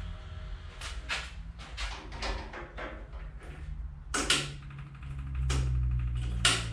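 Clicks and knocks of hands working the controls of the Bolens Iseki G154 diesel pull tractor as its key is switched on before starting. A louder low steady hum comes in about five seconds in.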